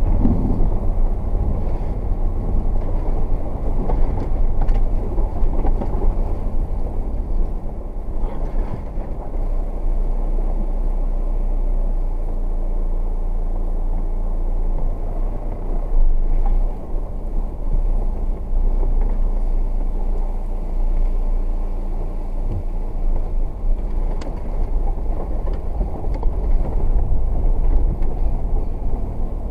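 A car driving slowly along a rutted dirt track, heard from inside the cabin: a steady low engine drone and tyre rumble, with an occasional knock as it goes over bumps.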